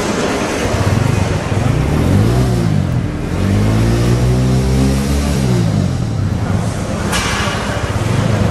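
TVS Apache 200's single-cylinder engine idling in neutral and revved twice: a short blip about two seconds in, then a longer rev held for a second or two before dropping back to idle.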